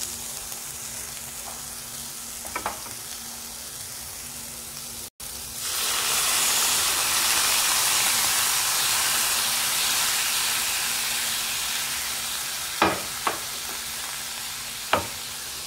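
Chicken, egg and tomato frying in a non-stick pan. About five seconds in, water poured into the hot pan sets off a loud sizzle that slowly dies down. A wooden spatula knocks against the pan a few times near the end.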